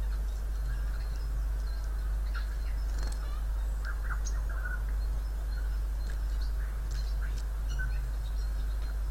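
Siberian jay giving short, scattered soft calls and chirps, in a passage where it imitates coughing, over a steady low rumble.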